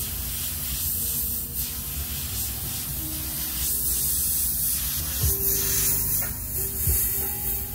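Bottom-feed airbrush spraying paint: a hiss of air that rises and falls in short passes.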